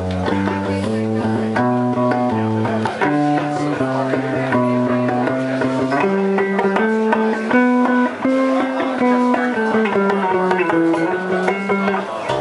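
Electric bass guitar played as a melodic lead, picking chords and ringing high notes over low notes, with a note that bends near the end.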